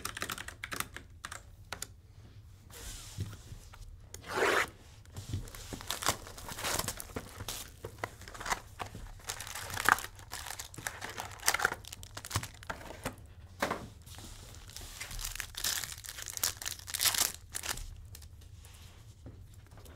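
Foil wrappers of 2022 Panini Chronicles Football hobby packs being torn open and crinkled by hand, a run of irregular rips and crumples.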